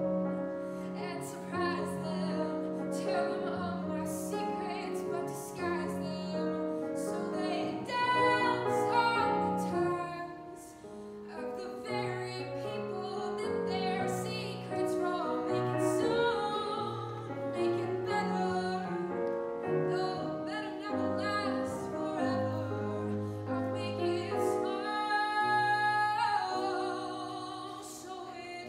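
A female solo voice sings a Broadway show tune, accompanied on a grand piano.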